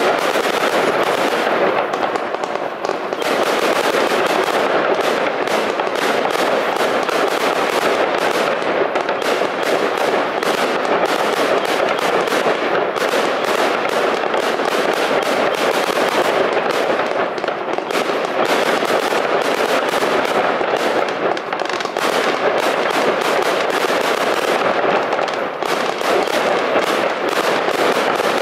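Fireworks display: a continuous, dense barrage of rapid, overlapping bangs and crackle from bursting aerial fireworks.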